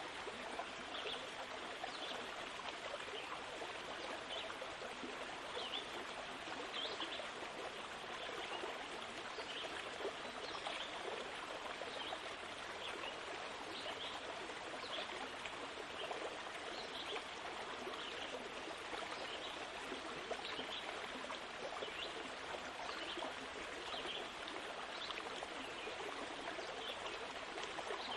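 A flowing stream: a steady rush of running water with small trickling splashes.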